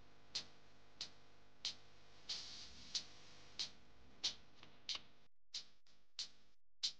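A sparse, even ticking beat, about three sharp ticks every two seconds, from a quiet soundtrack; it cuts out briefly twice.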